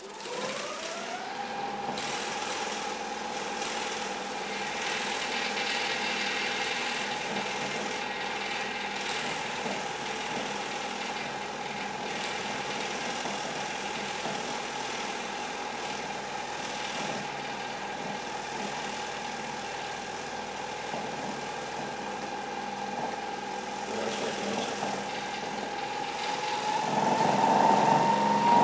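Whole-body vibration platform's motor spinning up with a rising whine, then running steadily. Near the end it speeds up, louder and higher in pitch.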